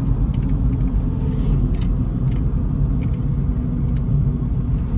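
Road noise inside a moving car's cabin: a steady low rumble of engine and tyres, with a few light clicks scattered through it.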